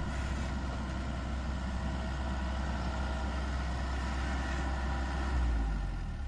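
Heavy construction-vehicle diesel engine running with a steady low drone, swelling briefly near the end.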